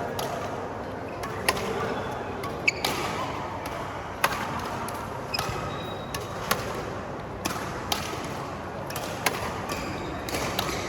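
Badminton rally: rackets hitting the shuttlecock with sharp pops roughly every second to second and a half, over a steady hall background.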